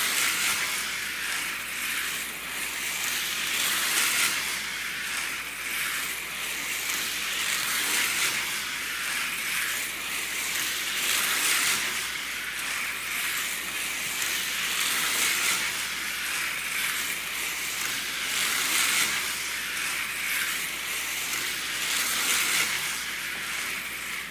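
TYCO HO-scale Twin Turbo Train slot car running laps on its plastic track: a steady, hissy buzz of the small motor, gears and wheels on the rails that swells and eases every few seconds as it goes round, stopping abruptly at the end.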